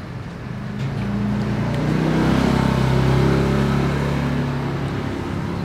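A motor vehicle driving past on the street, its low engine note growing louder over the first couple of seconds and then slowly fading.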